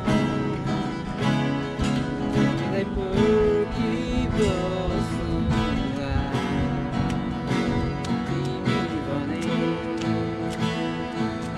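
Two acoustic guitars played together, strummed in a steady rhythm, with a wavering melody line over the chords near the middle.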